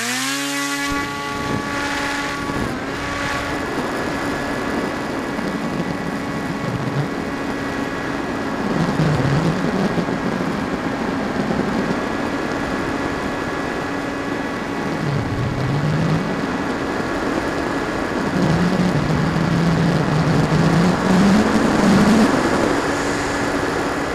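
Electric motor and propeller of a Firstar 2000 V2 FPV glider running as a steady whine at climbing power, heard through the plane's on-board camera with wind rushing over the microphone.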